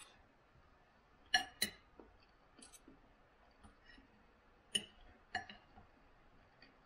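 Knife and fork clinking against a plate while cutting food. There is a handful of scattered sharp clinks, each with a brief ring, and two of them come close together.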